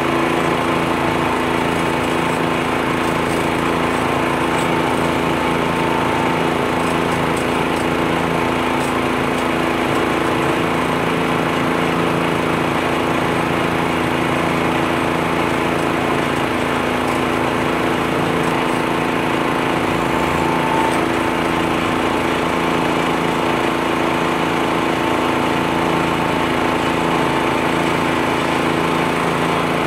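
A U-Mount leaf blower on the front of a John Deere 1025R compact tractor, running at a steady speed along with the tractor's engine: a continuous, unchanging engine drone.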